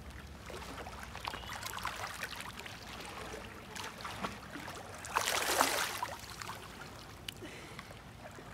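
Lake water lapping and trickling around a swimmer floating on her back, with small splashes and one brief, louder splash about five seconds in.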